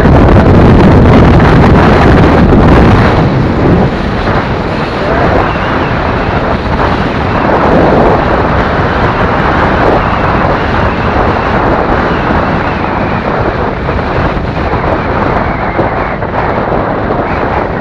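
Heavy wind rushing over the microphone of a camera on a moving motorcycle, with the bike's engine and road noise blended underneath. It is loudest in the first few seconds, then steady.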